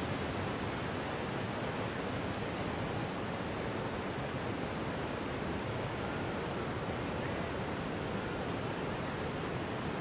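Steady rushing noise of the Dassam waterfall's water, even and unchanging throughout.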